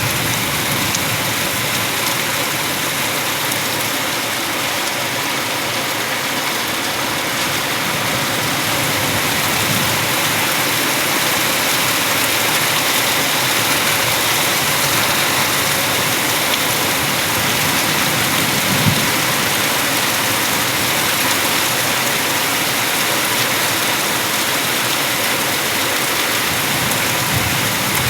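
Heavy rain falling in a steady, unbroken downpour, with one dull knock about two-thirds of the way through.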